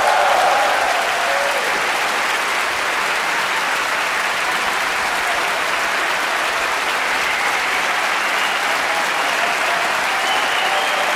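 Concert audience applauding: dense, steady clapping from a large crowd.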